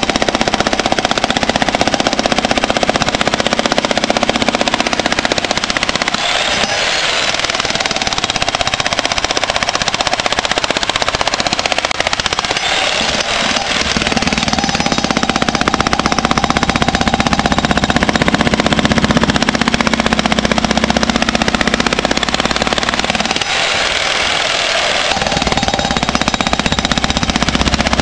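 Electric jackhammer breaking up old concrete, hammering loudly and continuously; for several seconds in the middle it takes on a deeper tone.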